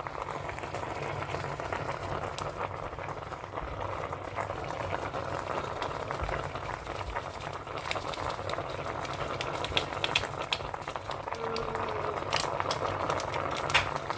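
Liquid simmering and bubbling steadily in a pan on the stove, with scattered light ticks and crinkles in the second half as seasoning is shaken from a packet.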